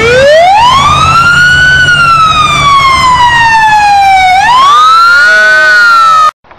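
Ambulance siren wailing: its pitch climbs over about two seconds, sinks slowly, then climbs again, over a low engine rumble. It cuts off suddenly near the end.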